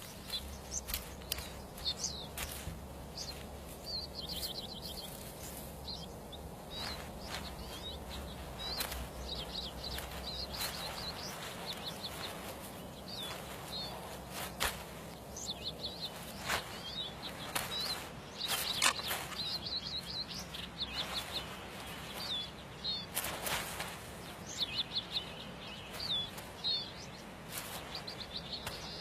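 Small birds calling with quick series of short, high chirps and trills, over and over, with scattered sharp clicks or knocks between them.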